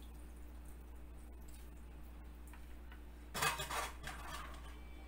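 Hands squeezing water out of blanched spinach, with a brief wet squish about three and a half seconds in, over a steady low electrical hum.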